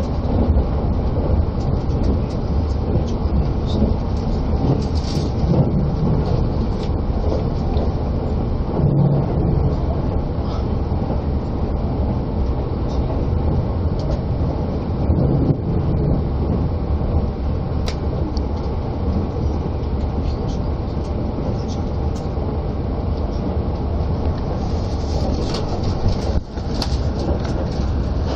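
Limited-express electric train running at speed on the Sobu Line, heard from inside the passenger cabin: a steady low rumble of wheels on rails, with a few scattered faint clicks.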